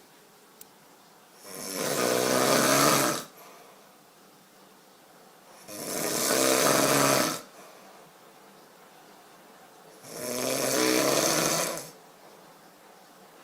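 A man snoring in his sleep: three long snores about four seconds apart, with quiet breathing between.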